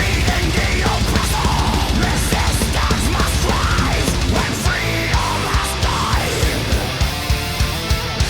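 Heavy metal backing music with guitar: a melodic line slides up and down over a dense low accompaniment, and fast, even drum beats come in about halfway through.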